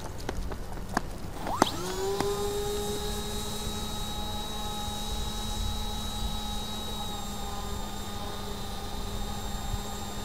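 Small propeller motor of a 3D-printed RC airplane whining up to speed about a second and a half in, after a couple of sharp clicks, then running at a steady high pitch under a low rumble of wind.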